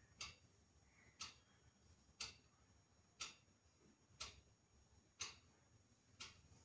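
Clock ticking faintly and evenly, about once a second.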